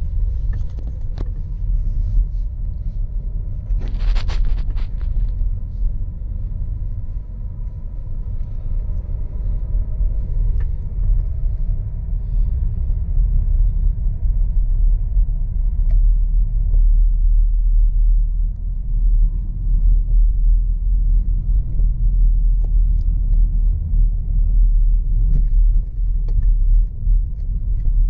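Low rumble of tyres and suspension heard from inside the cabin of a Skoda Karoq creeping along a rutted dirt field track. A brief loud hiss comes about four seconds in.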